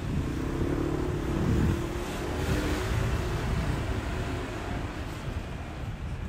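City street traffic: an engine hum, then a car driving past close by about two and a half seconds in, over a steady low rumble.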